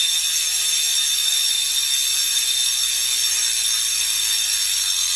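Industry Nine Torch rear hub freewheeling as the wheel is spun by hand: the freehub pawls ratchet so fast that they make one loud, steady, high-pitched buzz rather than separate clicks.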